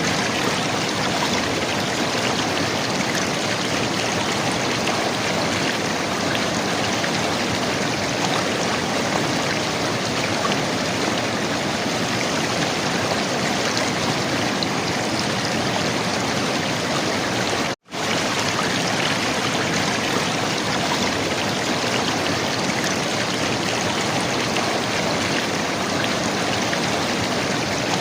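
River water running and gurgling in a steady rush. It cuts out for a split second about two-thirds of the way through, then resumes unchanged.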